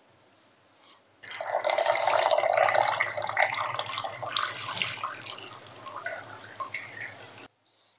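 Brewed Thai tea draining from a lifted cloth tea-sock filter into a stainless steel jug, a thin stream splashing into the liquid. It starts about a second in, is strongest at first, then thins and fades before cutting off suddenly near the end.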